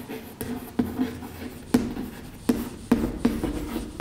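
Chalk writing on a chalkboard: a run of irregular sharp taps and short scrapes as the letters are written out.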